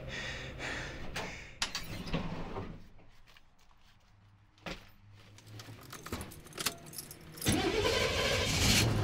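Keys jangling and a few knocks, then about seven and a half seconds in the 1988 Chevy G30 van's engine cranks and catches, rising in pitch as it starts and running on.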